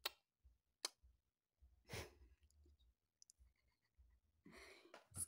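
Near silence in a small room: a few faint clicks, a soft breath about two seconds in, and a brief faint rustle near the end.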